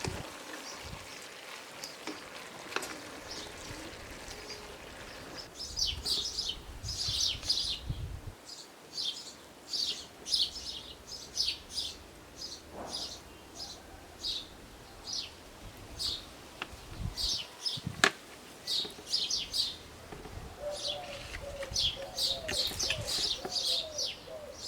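Small birds chirping over and over, short high chirps coming about a second apart from roughly five seconds in. There is a single sharp click about three-quarters of the way through.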